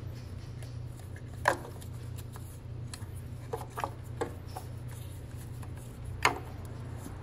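Sharp clicks and taps of engine parts being handled during reassembly, over a steady low hum. Two louder snaps come about one and a half and six seconds in, with a few lighter ticks in between.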